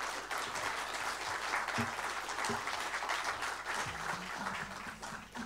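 Audience applauding, a dense patter of many hands clapping that eases off a little near the end.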